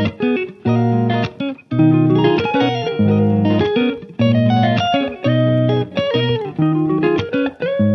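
Background music: plucked guitar notes over a bass line in a steady, repeating rhythm.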